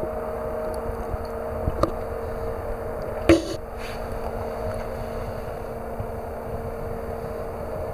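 A steady machine hum holding a few constant tones over a noise haze, with light clicks near two seconds and a single sharp knock a little over three seconds in.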